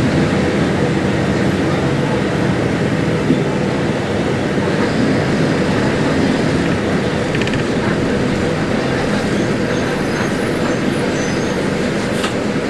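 Mercedes-Benz OF-1721L Euro 5 bus diesel engine running steadily and loudly.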